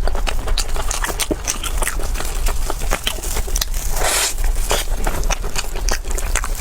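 Close-miked eating of crunchy food: a run of sharp crackling bites and chewing crunches, with a longer crunch about four seconds in.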